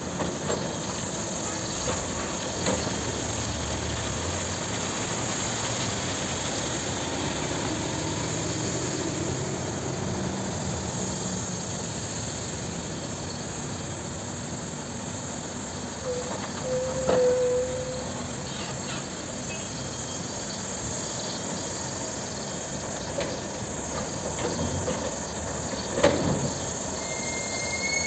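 Caterpillar 324D hydraulic excavator's six-cylinder diesel running steadily through a dig-and-load cycle. A brief squeal about halfway through and a sharp knock near the end stand out over the engine.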